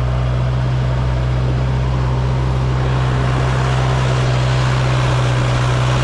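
Diesel engine of a farm machine running steadily at a constant speed, with no change in pitch.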